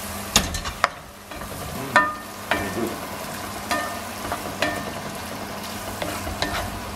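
Wooden spoon stirring penne through a tomato sauce in a frying pan: a steady sizzle from the sauce, loosened with pasta cooking water, with irregular sharp knocks and scrapes of the spoon against the pan.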